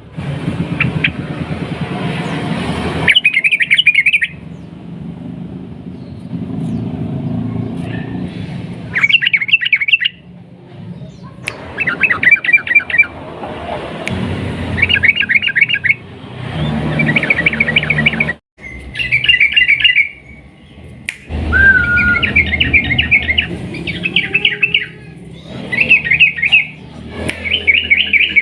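Yellow-vented bulbul (trucukan) singing in short, rapid chattering trills, each about a second long, repeated a dozen or so times with brief gaps. A steady low rumble runs underneath.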